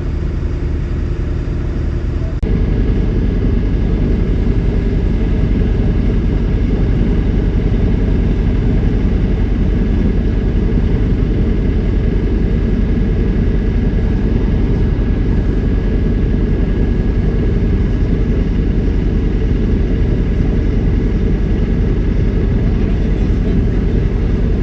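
Dryer vent cleaning equipment running steadily, with a low, even machine noise that steps up louder about two and a half seconds in.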